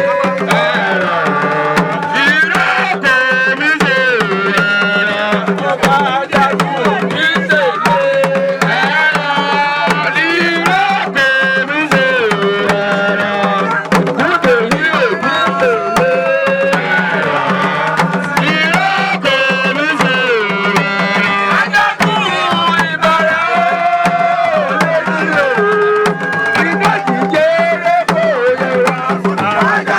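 Drum-led music, with busy hand-drum strokes under a melody that bends and slides in pitch, playing steadily throughout.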